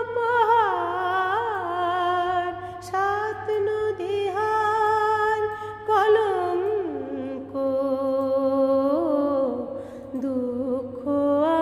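A woman singing an old Bengali film song, holding long notes with ornamented turns and slides. About seven seconds in her voice drops to a lower pitch, and it rises again near the end.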